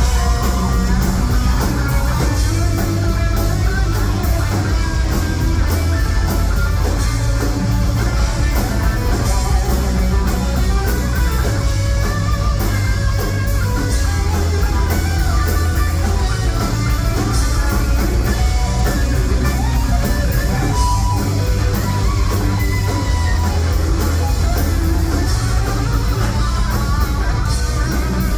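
Live heavy metal band: an electric guitar plays a fast lead solo in quick runs of notes over distorted rhythm guitar, bass and drums.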